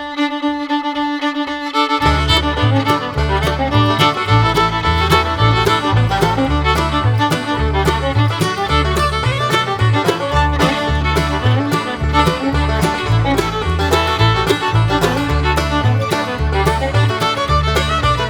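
Background music: a held opening note, then an upbeat instrumental tune with a steady bass beat coming in about two seconds in.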